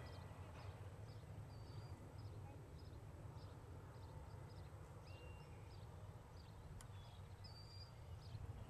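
Faint outdoor ambience, close to silence: a steady low rumble with scattered faint, short high chirps and a few brief whistled notes.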